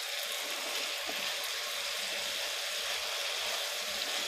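Honey sauce sizzling steadily in a nonstick frying pan around chicken wings as it reduces and is absorbed into the pieces, coating them in a glaze.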